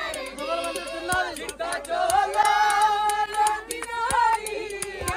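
A crowd singing a Punjabi wedding folk song together, several voices at once, with sharp hand claps keeping time.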